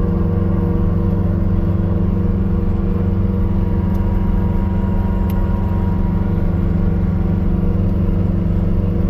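Bobcat skid steer's diesel engine running steadily while it drives a snow blower attachment that is throwing snow, heard from inside the enclosed cab.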